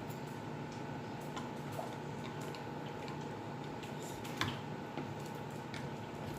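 Scattered faint clicks and ticks over a steady low hum, the loudest about four and a half seconds in.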